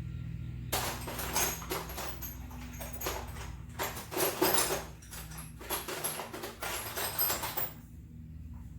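Metal hand tools scraping and clattering in a quick, irregular series of strokes for about seven seconds, over a steady low hum.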